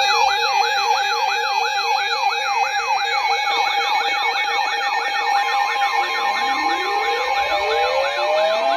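Several electronic sirens sounding together: a fast yelp sweeping about three times a second over a steady tone, with a two-tone hi-lo that drops out about three seconds in. From about six seconds in, slower wails rise in pitch.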